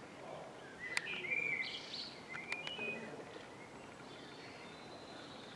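A small bird chirping a quick run of short, high calls between about one and three seconds in, with a couple of sharp clicks among them, over a steady hiss of outdoor background noise.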